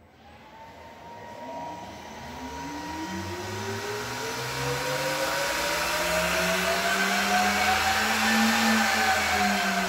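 CNC spindle motor run by a Siemens inverter, spinning up after a start command from Mach3 toward a set speed of 6000 RPM. Its whine climbs steadily in pitch and loudness over several seconds, peaks near the end and eases slightly, with a steady high tone and growing air noise alongside.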